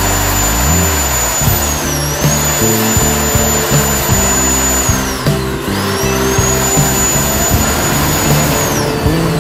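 Electric ducted fan blowing through a 3D-printed duct with turning vanes on a static thrust test stand: a high steady whine over a rush of air. The whine dips briefly about two seconds in, drops sharply and comes back near the middle, then spools down near the end. Background music plays over it.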